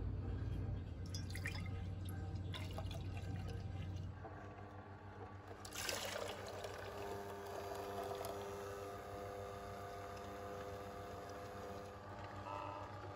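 Kuvings C7000 slow juicer with a low motor hum; about halfway through its juice cap snaps open and juice trickles and pours from the spout.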